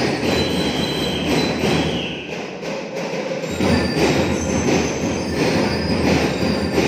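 Loud, distorted band music with a steady beat and short bell-like high notes, over the din of a large crowd.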